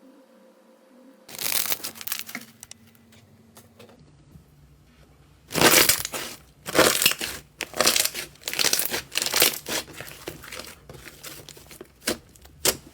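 Slime being squeezed and pressed by hand: one short burst of noise about a second in, then, from about halfway through, a run of loud, short bursts, roughly one or two a second.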